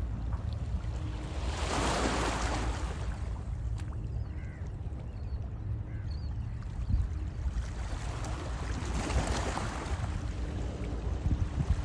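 Small sea waves washing onto the shore, swelling twice, about two seconds in and again later on, over a steady low rumble of wind on the microphone.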